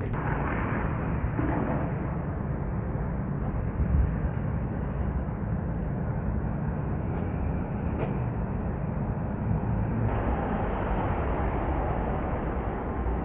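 Steady outdoor city background noise, mostly traffic, with a few faint clicks.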